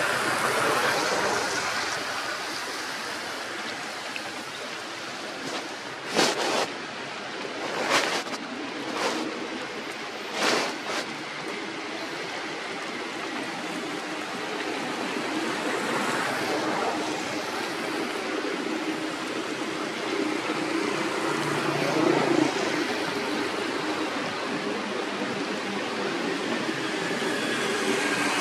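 Steady outdoor background hiss, with a few short bursts of noise about six to eleven seconds in.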